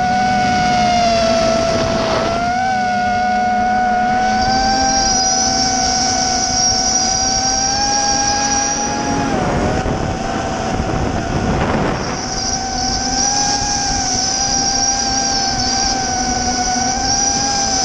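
Racing quadcopter's XNova 2204 brushless motors whining at a fairly steady pitch as it flies, the pitch dipping briefly about halfway through before settling again, with a higher whine that comes and goes over a rushing noise.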